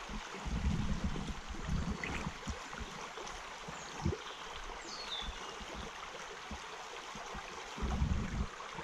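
Shallow river water running steadily, a continuous rushing hiss. A few low rumbles come at the start and near the end, with a single knock about four seconds in and a faint high falling chirp shortly after.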